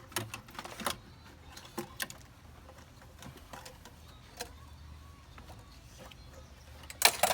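Irregular light clicks and taps over a low steady hum, with a louder burst of clattering near the end.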